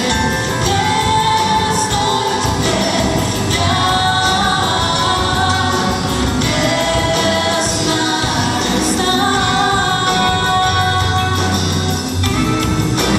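Folk-pop vocal group of women singing together over band backing with a steady beat.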